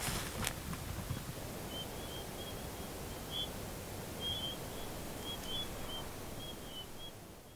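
Outdoor ambience: a steady open-air rush with short high chirps repeating irregularly through it, after a couple of brief scuffs at the start. It fades out at the end.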